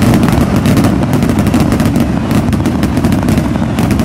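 Loud, unbroken barrage of firework rockets going off, their bangs and cracks overlapping many times a second.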